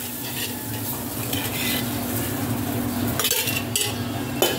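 Steady kitchen hiss and low hum, with a few light metallic clinks of steel utensils about halfway through and near the end.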